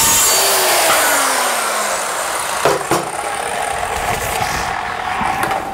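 Evolution Rage 180B metal-cutting circular saw finishing a cut through aluminum sheet, then released and winding down with a falling whine. Two knocks follow about three seconds in as the saw is set down on the stand.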